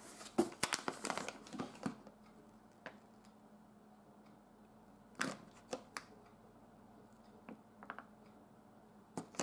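Paper and cardboard packaging being handled and unwrapped: a flurry of rustling and crinkling for the first two seconds, then a few scattered short rustles and clicks.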